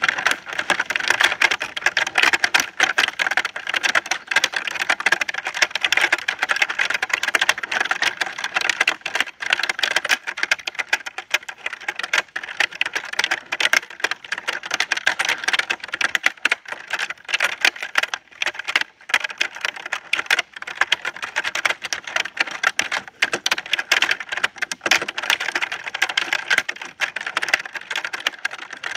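Continuous fast typing on a keyboard for an iPad and phone: a dense stream of key clicks with a few brief pauses.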